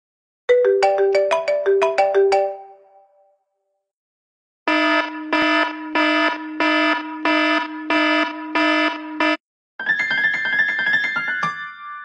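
Three old iPhone ringtones, played one after another with short silences between them. The first is a quick run of bright melodic notes. The second is a steady pulsing tone repeating about twice a second, and the third is a dense chiming figure that ends on a held high note fading out.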